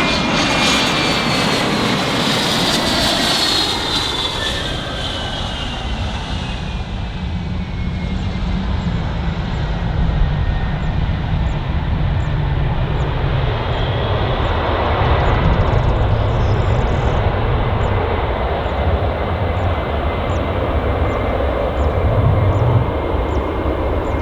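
Fixed-wing business aircraft's engines running. A whine slides down in pitch over the first few seconds, then settles into a steady whine over a deep rumble that grows louder later on.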